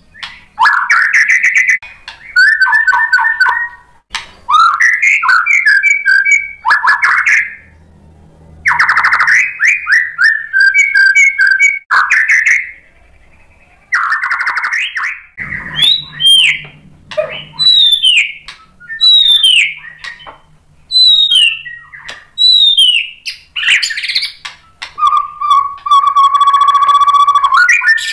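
White-rumped shama singing loudly in a long string of varied phrases with short pauses between them: rising whistled sweeps and fast rattling trills, then a run of repeated down-slurred whistles about once a second, and near the end a long buzzing trill.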